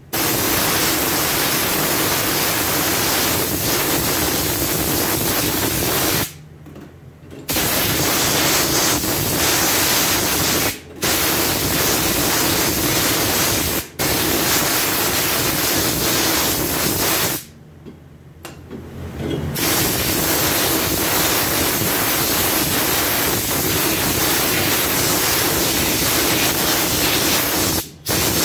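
Compressed-air cup spray gun blowing cleaning liquid over metal parts: a loud, steady hiss. It stops and restarts as the trigger is let go and squeezed again, with two pauses of a second or two and two very brief breaks.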